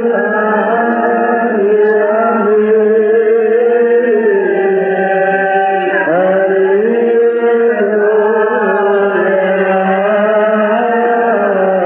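Male voice chanting a drawn-out melismatic Coptic liturgical melody, holding each note and then sliding to the next with no clear words.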